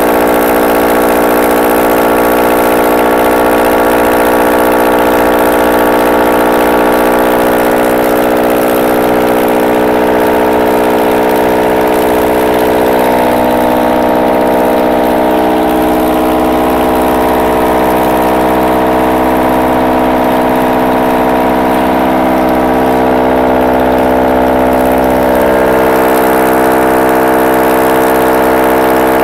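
Freshly rebuilt Honda D16Y8 1.6-litre SOHC VTEC four-cylinder engine idling steadily on its first run after the rebuild. It is a loud, even drone with no change in speed.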